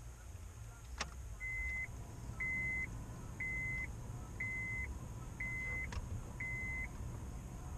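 An in-car electronic warning chime beeps six times, evenly about once a second, each beep short and high, over the low hum of the Honda Civic's 1.4-litre petrol engine running. There is a sharp click about a second in.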